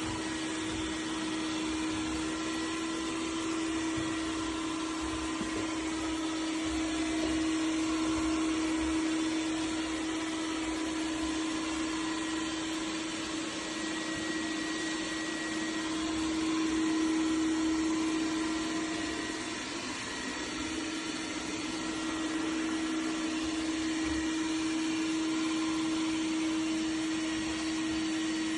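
Dreame X50 Ultra robot vacuum running with its suction motor on: a steady whirring rush with a constant low tone. It swells a little now and then.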